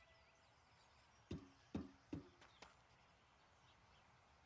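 Near silence broken by three short soft knocks, about half a second apart, starting just over a second in, followed by a couple of faint ticks.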